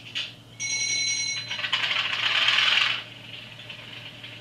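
Class 37 diesel cold-start sequence played by the DCC sound decoder through the tiny speaker of an N gauge model locomotive. A brief steady ringing tone sounds, then the engine cranks and fires with a loud rough burst and settles to a lower steady idle about three seconds in.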